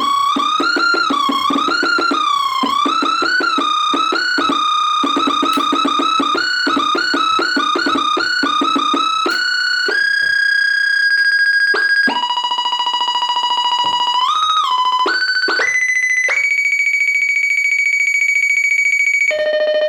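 A 1979 Yamaha CS-20M analog monophonic synthesizer playing one bright, buzzy voice. In the first half it plays rapid repeated notes, several a second, with the pitch gliding up and down. About halfway through it changes to long held notes that step up in pitch, one of them bending up briefly.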